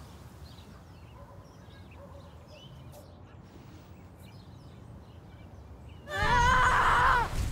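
Quiet outdoor ambience with faint small birds chirping. Near the end a loud, wavering, high pitched cry lasting about a second breaks in.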